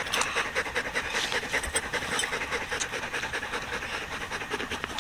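Belgian Malinois panting rapidly in a steady, rhythmic run of short breaths, winded after running and fetching.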